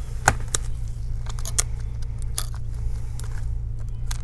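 Small sharp clicks and taps as gloved hands handle the parts of an opened MacBook Pro, the loudest about a third of a second in, over a steady low hum.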